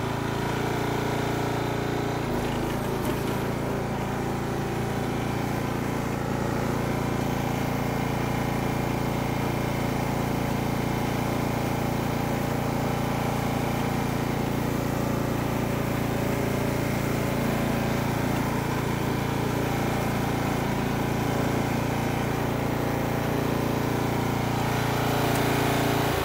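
Riding lawn mower's engine running at a steady speed while it mows.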